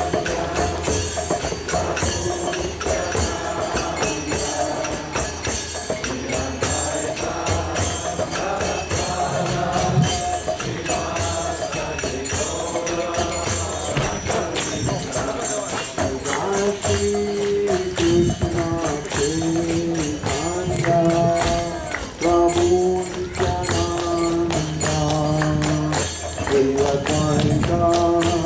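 Devotional kirtan: hand cymbals (kartals) keep a fast, steady jingling beat under group chanting, and the voices come through stronger and clearer from about halfway in.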